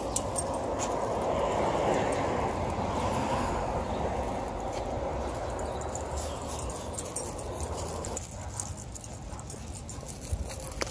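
Footsteps and the rustle of dry leaves and grass during a dog walk, with light clicks and wind rumble on the microphone. A steady hiss underneath drops away about eight seconds in.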